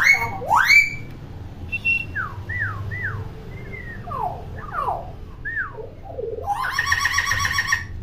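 Common hill myna calling: two loud rising whistles, then a string of shorter falling whistles. Near the end comes about a second and a half of rapid pulsed chatter, the bird's imitation of laughter.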